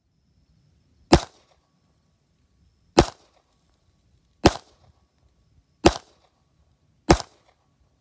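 Five single handgun shots fired at an unhurried pace, about one and a half to two seconds apart. This is a slow-fire string for accuracy with no time pressure.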